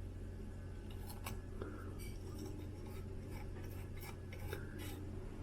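Faint scattered light clicks and scratches of hands working on a small plastic drone part, over a steady low hum.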